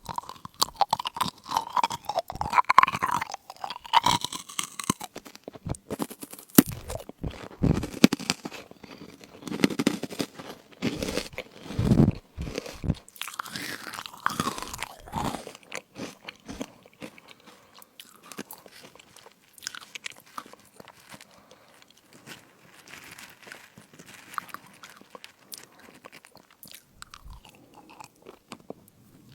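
Crunchy fruit crisps being bitten and chewed, a dense run of sharp, irregular crackles. The crunching is loudest in the first half and thins to softer, sparser chewing later.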